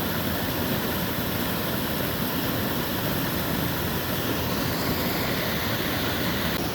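Steady rushing of river water pouring over a dam, an even, unbroken noise.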